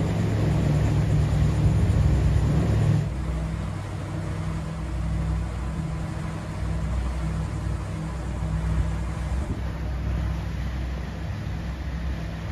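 Steady low drone of a 2006 Meridian 341 sedan-bridge motor yacht's engines under way, with wind and water noise. It drops to a quieter, even hum about three seconds in.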